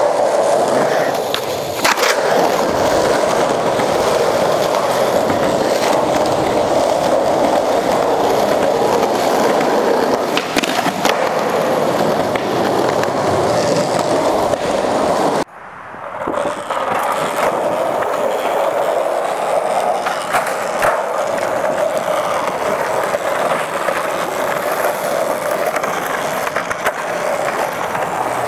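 Skateboard wheels rolling over rough concrete in a steady rumble, broken by a few sharp clacks of the board. The sound cuts off abruptly about halfway through and starts again with another ride.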